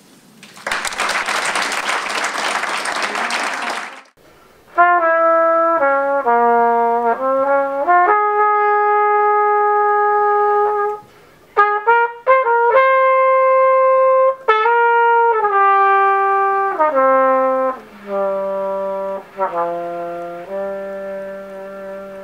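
Audience applauding for about three seconds, then a brass instrument playing a slow melody of long held notes, fading away near the end.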